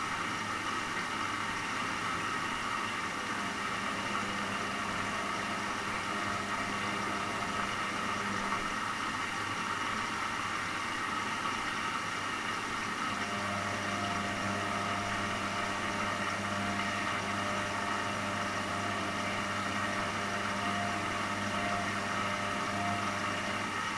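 Washing machine running: a steady hum with a noisy whir, and a slightly higher steady tone joining a little past halfway through.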